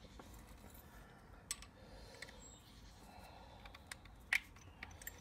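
A few faint, scattered light clicks and taps of handling, with one sharper click a little over four seconds in, over a low steady background.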